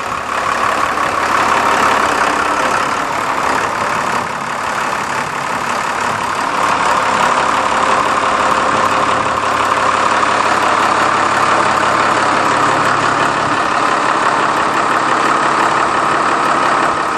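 Cummins 5.9-litre six-cylinder turbo diesel engine idling steadily.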